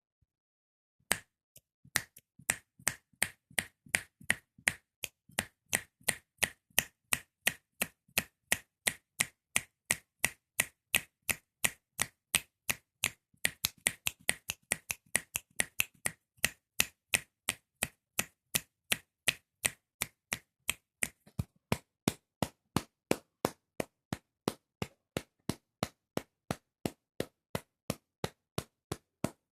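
Fingers snapping over and over at a steady pace, about two to three sharp snaps a second, starting about a second in.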